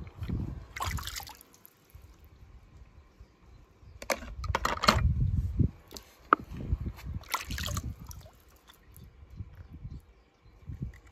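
Swimming-pool water sloshing and splashing as a hand and the camera dip in and out of the water, with a low muffled rumble between a few short splashes: about a second in, around four to five seconds, and around seven seconds.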